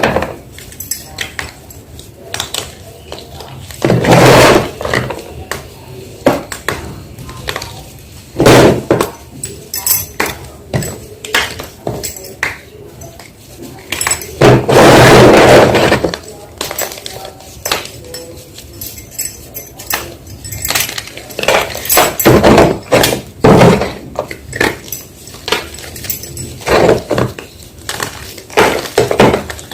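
Blocks of colourful gym chalk being crushed and crumbled, giving irregular crisp crunches and crackles, with two longer, louder crushing bursts about four and fifteen seconds in.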